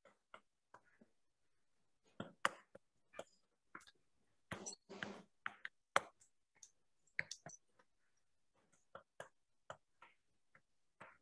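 Irregular light clicks and taps of handwriting being entered on a digital whiteboard, coming roughly a stroke at a time and thickest in the middle of the stretch.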